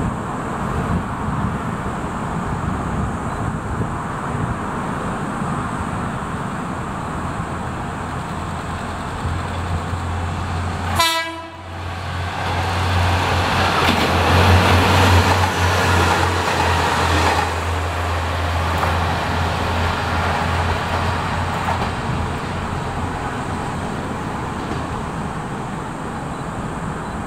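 Kanto Railway KiHa 2100 diesel railcar approaching and passing close by: its engine drones low, it gives one short horn toot about eleven seconds in, and the wheel and rail noise swells as it goes past and then fades away.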